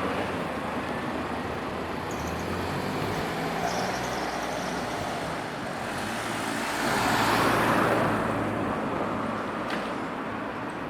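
Road traffic: motor vehicles running, with one passing close about two-thirds of the way through, briefly louder.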